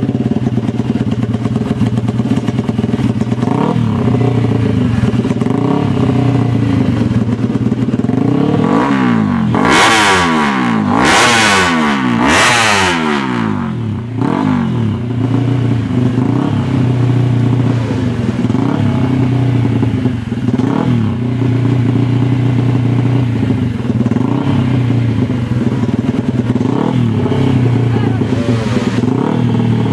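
Yamaha MX King motorcycle engine running hard and steady, its pitch swelling and dipping every couple of seconds. About ten seconds in, several motorcycles pass close at speed for a few seconds, their pitches sweeping and falling as they go by.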